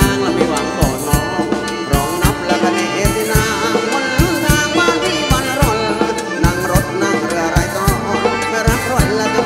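Thai ramwong dance band playing through the mixing desk: upbeat dance music with a steady drum beat of about two strokes a second under a wavering melodic lead.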